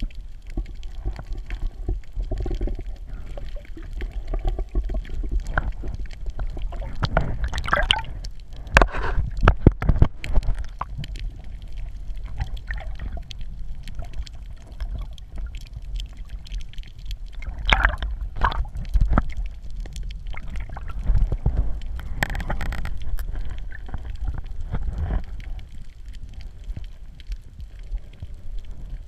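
Water sloshing and gurgling, heard muffled from a camera held underwater, over a steady deep rumble. Several louder splashing, bubbling bursts come and go, the loudest about a third of the way through.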